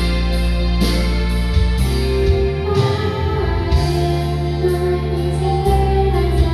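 Karaoke machine backing track playing: steady bass notes, sustained keyboard-like melody tones and a regular beat.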